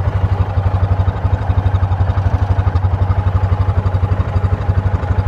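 Vehicle engine idling, a steady, evenly pulsing low throb.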